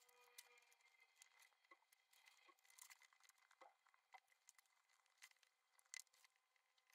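Faint crackling and rustling of potting soil being crumbled by hand off an aglaonema's root ball over a plastic tray, with a sharper click about six seconds in.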